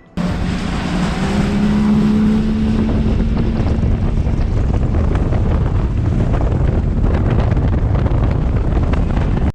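Outboard motor of a fishing boat running at speed, with heavy wind buffeting the microphone and water rushing past the hull; the engine note rises a little in the first couple of seconds, then holds steady.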